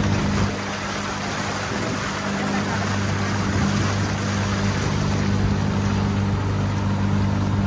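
Motorboat engine running steadily under way, with the rush of water and wind over the hull. The engine hum drops a little about half a second in and builds back up over the next couple of seconds.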